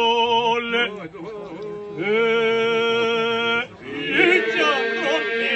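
Albanian folk song sung in parts by a group of men and women: long held notes over a steady drone. One phrase ends about a second in, a new held note starts about two seconds in, and busier, ornamented singing begins near the end.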